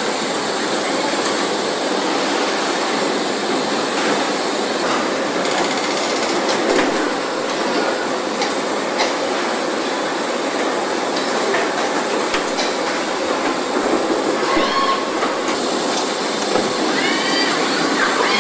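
Factory-floor machinery and industrial robots on a car-door assembly line: a steady dense hiss and clatter with scattered clicks, and a few short whines that rise and fall in the last few seconds.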